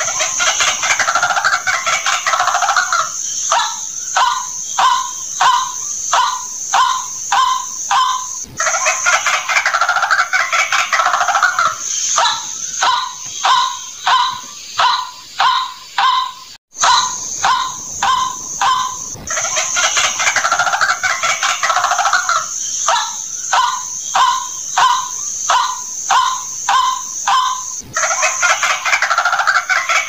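White-breasted waterhen calls on a lure recording. Bouts of harsh, chattering croaks alternate with runs of rapid, evenly repeated notes, about two a second, and the sequence comes round again several times over a steady high hiss, with a brief dropout about halfway through.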